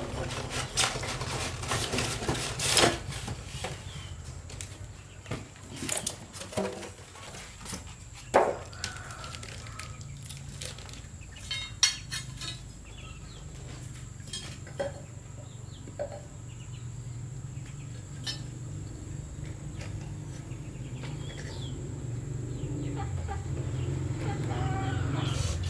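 Chickens clucking now and then, among scattered knocks and clicks, over a steady low engine hum that grows louder near the end.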